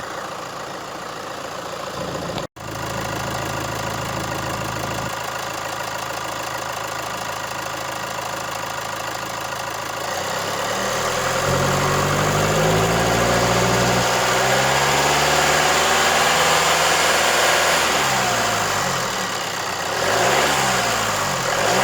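Chevrolet Colorado's Duramax 2.8 four-cylinder turbodiesel idling, then revved up and down several times from about halfway in, with quicker blips near the end.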